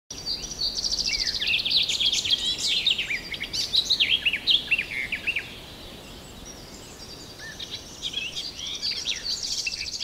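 Small songbirds chirping and trilling, several calls overlapping. The calls are busy for about the first five seconds, thin out, then pick up again near the end.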